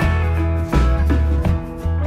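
Background music with a held bass line and plucked notes over it.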